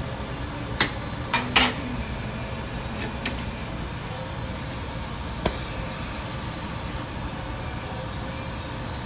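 Steady low rumble of a gas flame heating a cast-iron babbitt-pouring jig, with sharp metal clanks about one, one and a half, three and five and a half seconds in; the one at one and a half seconds is the loudest.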